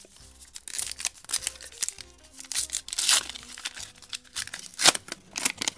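Foil wrapper of a 1991 Upper Deck baseball card pack being torn and crinkled open by hand, a run of sharp crackles with the loudest just before the end, and the stack of cards slid out of it. Faint background music plays underneath.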